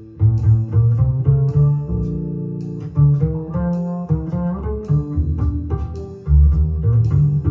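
Jazz recording played through Rogers LS3/5A bookshelf speakers driven by a Luxman LX-380 amplifier and heard in the room. A prominent walking bass line of low, separately struck notes carries the music, with lighter instruments above it.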